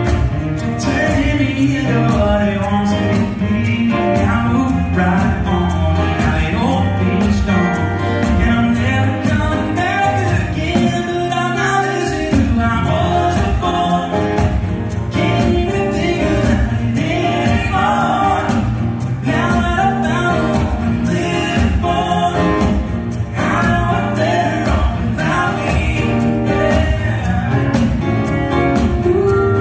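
Live acoustic band music: several acoustic guitars strumming together under a man singing the lead.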